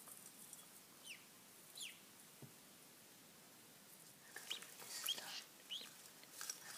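Newly hatched ducklings peeping faintly: short, falling peeps, two spaced ones in the first couple of seconds, then a quick run of several from about four seconds in, with light rustling of straw as they move.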